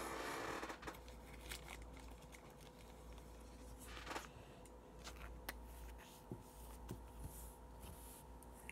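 Upper Deck hockey trading cards handled and flicked through by hand: faint rustling with scattered light clicks of card stock.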